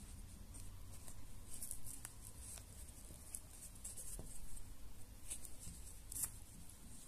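Faint scratchy rustling of a crochet hook drawing yarn through the edge of a felt shoe sole, with short irregular scrapes, the sharpest about six seconds in.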